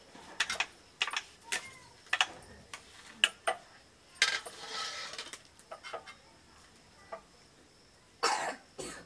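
Stainless-steel serving spoons and ladles clinking and scraping against steel pots and plates as curry and rice are dished out, in a string of sharp clinks. Two longer rasping scrapes come about four seconds in and near the end.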